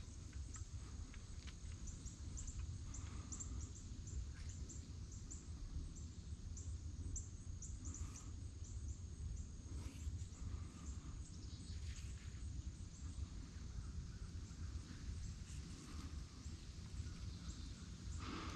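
Small birds chirping in many short, high notes over a steady low rumble, with a few soft rustles.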